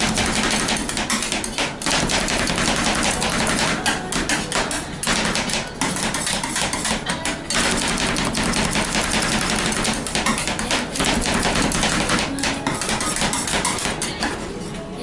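Two metal spatulas chopping and scraping ice cream on the steel cold plate of a rolled ice cream machine: a fast, continuous clatter of metal strikes, easing off slightly near the end.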